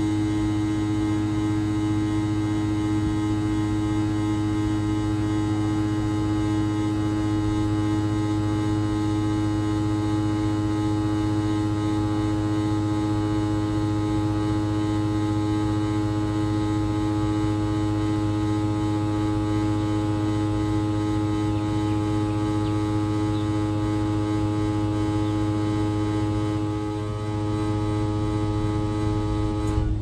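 Loud humming from a 2011 Goodman 2.5-ton package heat pump just after shutdown, with the outdoor fan coasting to a stop: a steady electrical hum with a strong low tone and a stack of higher overtones. It cuts off suddenly at the very end. The owner suspects either the contactor or the blower of causing the hum.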